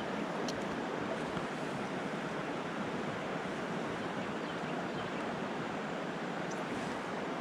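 Steady rushing of river water flowing over rocks.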